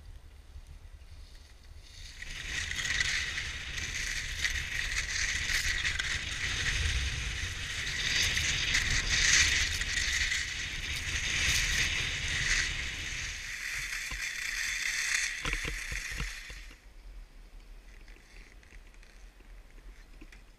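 Skis hissing and scraping over groomed, packed snow on a downhill run, with wind rumbling on the microphone for much of it. About two seconds in the scraping grows loud and steady; near the end it drops to a fainter hiss as the skier slows.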